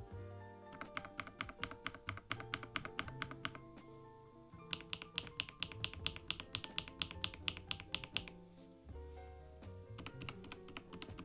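Fast typing on a NuPhy Halo 75 keyboard fitted with linear Milky Yellow switches: rapid keystroke clicks in two long runs, with a few scattered strokes near the end, over background music.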